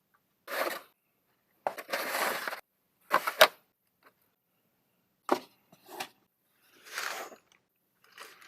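Food packaging being handled and opened: about seven short rustling, crinkling bursts with pauses between them.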